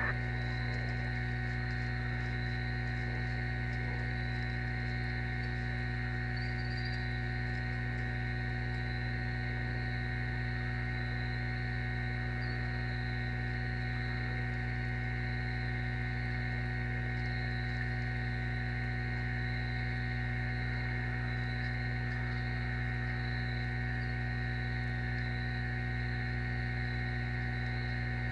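Steady electrical hum on a nest camera's audio feed, with a faint, slightly wavering high-pitched whine over it.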